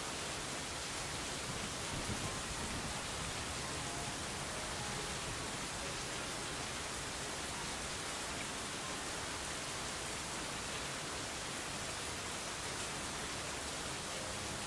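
Steady, even hiss spread across all pitches, unchanging throughout, with a few faint short tones here and there.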